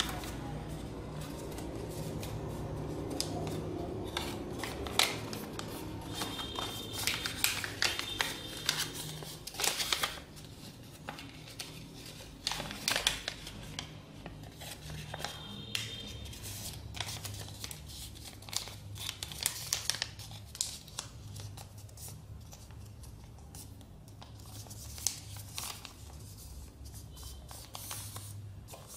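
A sheet of paper being folded and creased by hand: irregular crisp snaps, crackles and rustles as the creases are pressed and the paper is handled.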